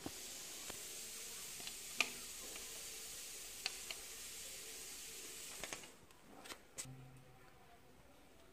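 Faint clicks and taps from a screwdriver and a plastic wall switch plate being handled, over a steady hiss that stops about six seconds in.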